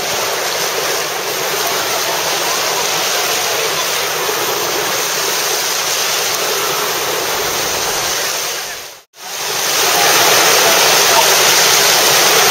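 Steady rush of running water, like water pouring down a water slide or into a pool. It cuts out sharply about nine seconds in and comes back louder.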